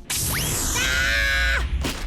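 Cartoon slapstick sound effect: a sudden loud noisy burst with a quick rising whistle and then a held, wavering tone, ending after about a second and a half.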